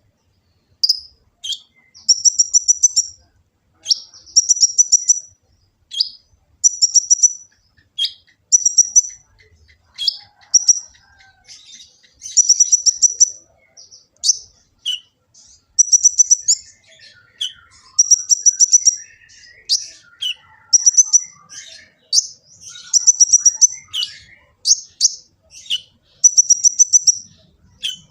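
Kolibri ninja (konin), a sunbird, singing in full song. It repeats short, very high, rapid trilling phrases of about half a second to a second each, with sharp single chips between them. A fainter, lower twittering runs under the song in the middle.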